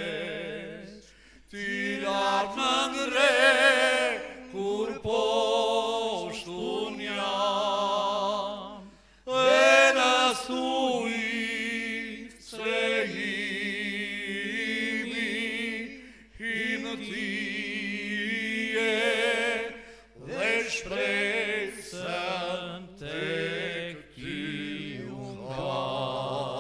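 Men's voices singing an Albanian Christian song in harmony, in phrases broken by short breaths, with vibrato on the held notes.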